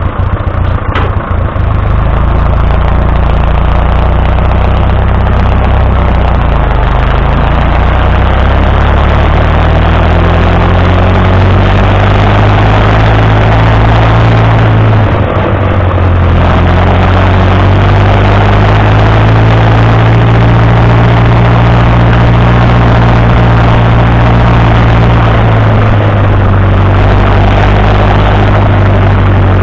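Fordson Super Major tractor's four-cylinder diesel engine running steadily as the tractor drives along, heard close up. The engine note dips briefly about halfway through, then carries on.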